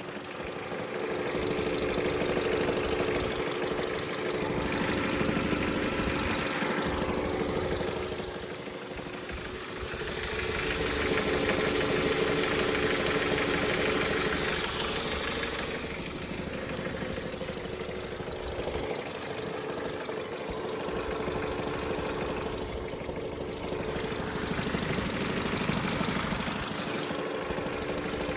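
Skoda Octavia A7's 1.8 TSI petrol engine running with a knock whose cause the owner is asking about. The sound swells and eases several times.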